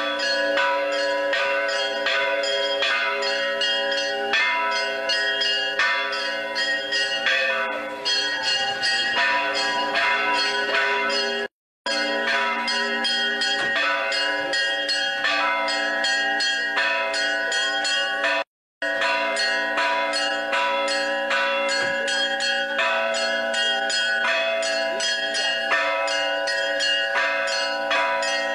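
Several church bells rung together in a fast, continuous peal, many pitches struck in quick, overlapping succession. The sound drops out twice for a moment near the middle.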